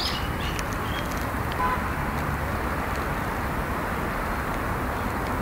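Steady outdoor background noise, mostly an even low rumble, with a few faint short chirps in the first two seconds.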